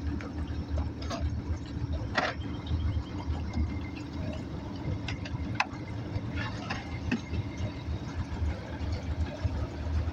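Boat outboard motor running steadily, a low continuous drone, with a few light knocks over it.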